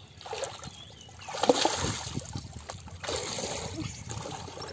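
Hands splashing and sloshing in shallow water, in three bursts: a short one just after the start, the loudest about a second and a half in, and another about three seconds in.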